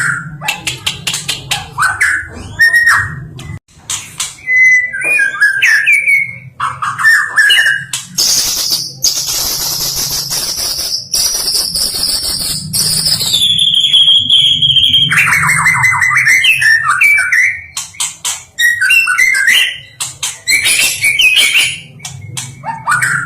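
White-rumped shama (stone magpie) singing a loud, varied song of rapid clicking chips and warbled phrases. About eight seconds in, a long high note runs for several seconds and slides down in pitch, followed by a fast trill.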